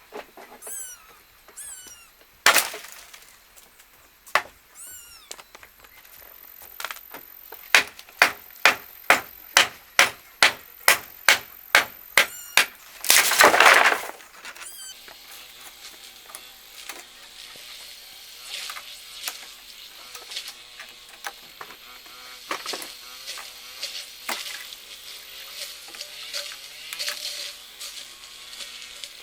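Hard strikes with a tool: a couple of single knocks, then an even run of about two strikes a second for several seconds, ending in a roughly one-second crash of something breaking apart. Lighter clatter follows.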